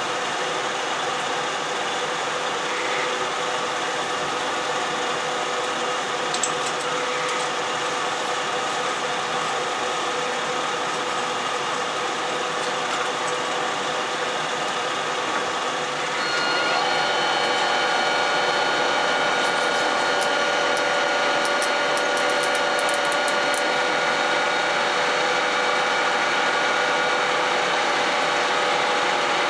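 Metal lathe running with a steady motor-and-gearbox hum. Just past halfway the spindle is engaged and the machine runs louder, with a set of higher steady gear whines, while a twist drill in the tailstock bores into an ertalon (nylon) bar.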